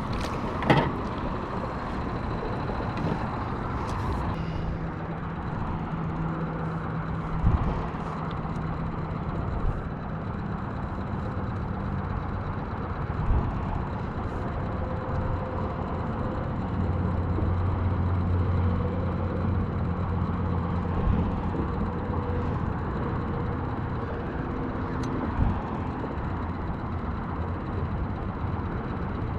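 Boat motor running steadily at trolling speed: a constant hum whose low tone shifts a little now and then, with a few light knocks.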